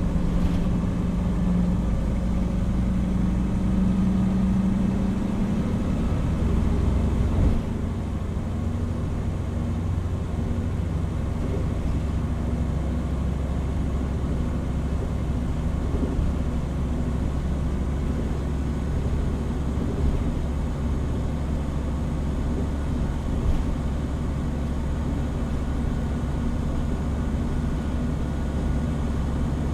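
Hino Rainbow HR route bus (PB-HR7JHAE) heard from inside the cabin while driving: the diesel engine runs with a strong low hum for the first several seconds, its note drops suddenly about seven seconds in, and it then carries on as a steady low rumble with road noise.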